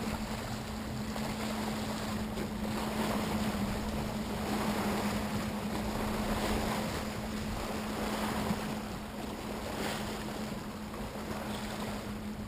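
Wind on the microphone over small waves lapping against shoreline rocks, with a steady low hum underneath.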